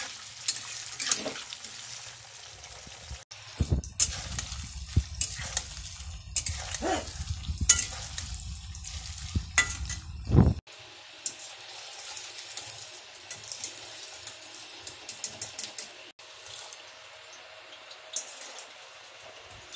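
Paneer cubes frying in hot oil in a steel kadhai, a steady sizzle with many sharp clinks and scrapes of a spatula stirring against the pan. A loud low rumble runs for several seconds in the middle, and the sizzle is quieter after about ten and a half seconds.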